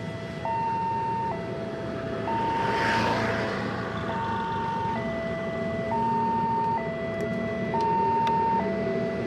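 Railway level-crossing warning alarm sounding a steady two-tone signal, high and low tones alternating about every second, which warns that a train is approaching and the barrier is down. Under it, traffic idles and rumbles, with a short hissing swell about three seconds in.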